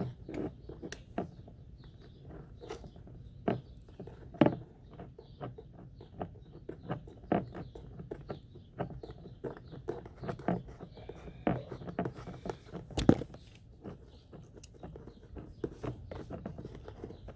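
A socket ratchet with extension clicking and knocking at the spark plug of a Honda Ruckus scooter engine as the plug is worked back in, in irregular strokes with a few louder metal knocks about four and a half and thirteen seconds in.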